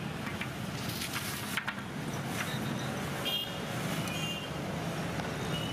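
Street traffic: a vehicle engine running steadily close by, with short high horn toots about halfway through and again a second later. There are a few sharp knocks about a second in.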